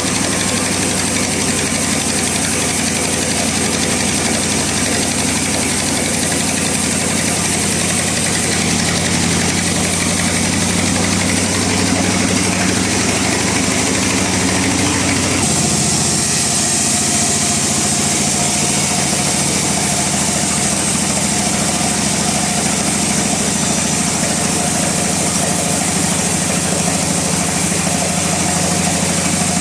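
Bandsaw mill running with a steady machine drone; its tone changes abruptly about halfway through.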